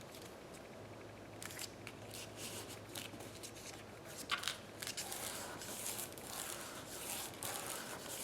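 Paper being handled with a few soft rustles and ticks, then, from about halfway through, a run of quick scratchy strokes as glue is spread over a sheet of paper.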